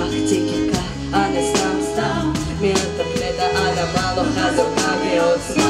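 Live band music: a woman sings into a microphone over archtop guitar, a bass line and a steady beat.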